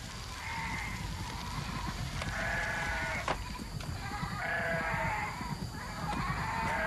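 Flock of sheep bleating: four separate drawn-out bleats, one every second or two, with a sharp click about three seconds in.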